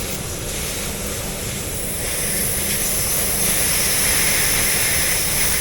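Nitrogen gas hissing steadily through the refrigerant lines and hose fittings during a pressure test of an air-conditioning system, growing a little louder about two seconds in.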